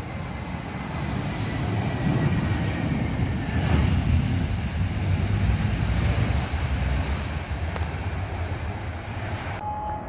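Jet engines of a landing Vueling Airbus A321 airliner passing along the runway: a low rumble with a faint falling whine that swells over the first few seconds and then eases off. A steady pitched tone cuts in abruptly near the end.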